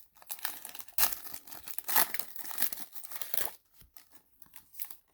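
Panini Chronicles trading-card pack wrapper being torn and crinkled, dense crackling that stops about three and a half seconds in.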